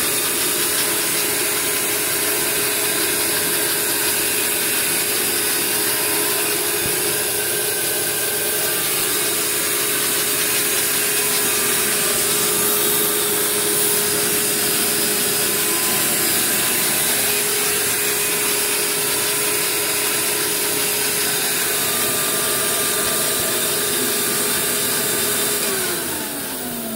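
Vacuum cleaner running steadily with a constant whine, drawing air through a LEGO four-cylinder overhead-cam vacuum engine whose plastic parts clatter and rub as it runs at about idle speed. Near the end the whine falls in pitch and the noise drops as the vacuum winds down.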